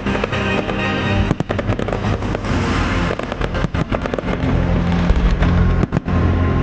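Aerial firework shells bursting with repeated bangs and crackling, over music from loudspeakers. The music's low bass notes grow stronger from a little past the middle.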